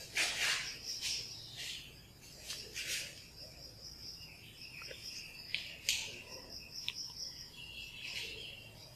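Chalk scratching and tapping on a blackboard as words are written, in short strokes with a few sharp taps about midway. A thin high tone comes and goes behind it.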